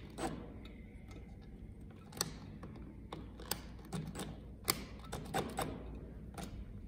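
Irregular light clicks and taps of the blind's metal mounting clips and screws being tightened and handled.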